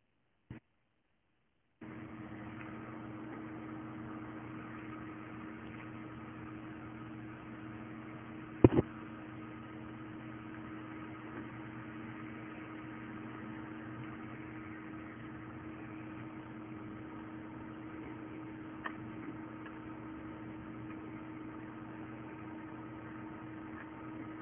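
Steady electrical machine hum with several fixed tones, starting abruptly a couple of seconds in, with one sharp knock at about eight and a half seconds.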